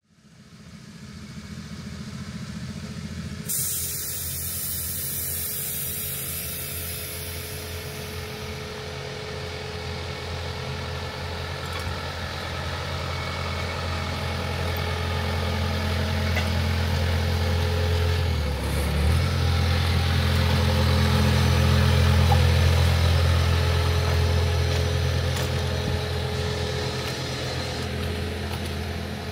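Engine of a miniature ride-on railway locomotive running steadily, its note dipping briefly about two-thirds of the way through. A hiss sounds for a few seconds near the start.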